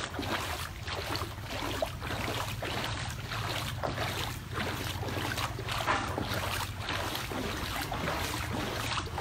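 Footsteps wading through floodwater, a soft splash every half second to a second, with wind on the microphone.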